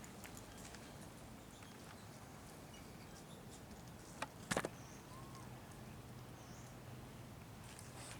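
A monkey eating: faint scattered clicks, then a sharp click and two louder cracks close together about halfway through.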